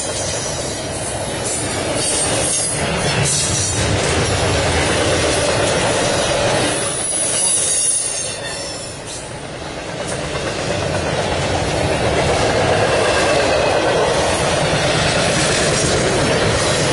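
Double-stack intermodal freight train passing at track speed: the steady rumble and rattle of the container well cars' wheels on the rails, with a brief high squeal about seven seconds in.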